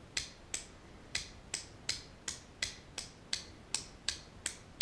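Small mechanism of a partly reassembled baitcasting reel clicking at an even pace, about three sharp clicks a second, as its freshly greased parts are worked to check that everything moves freely.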